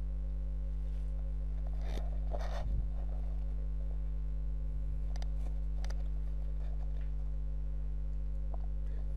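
Steady low electrical mains hum with a stack of overtones, picked up by the recording microphone. A brief rustle about two seconds in and a few faint clicks later sit on top of it.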